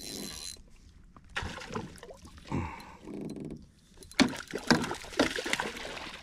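Hooked trout splashing at the surface beside a boat as it is brought to the landing net, with sharp knocks among the splashes. The splashing is busiest and loudest in the last two seconds.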